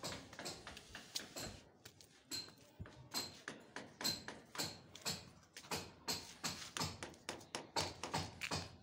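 Irregular light tapping and knocking, a few short knocks every second.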